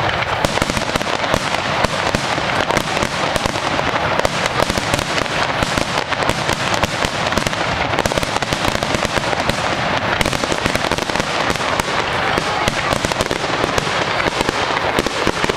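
Fireworks going off in a dense, unbroken crackle of many rapid small bangs at a steady level.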